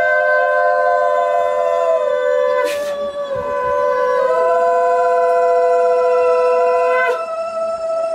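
Two conch shells (shankha) blown together in long held notes at two different pitches, each blast sagging in pitch as it ends, with a short break about seven seconds in.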